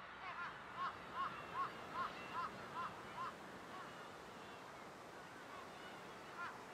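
A bird calling in a quick, evenly spaced series of about eight short calls, two to three a second, fading out after about three seconds, with one more call near the end, over a faint steady background.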